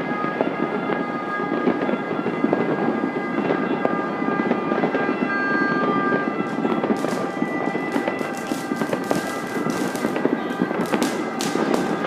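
New Year's fireworks and firecrackers going off, with a thick scatter of sharp pops and crackles from about halfway through over a steady background rumble of noise.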